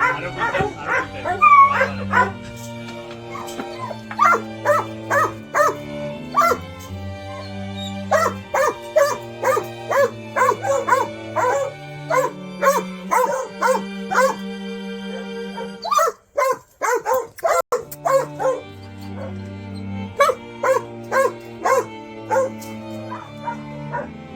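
Hunting dogs barking and yelping over background music with slow, steady bass notes and a regular run of short, pitched notes.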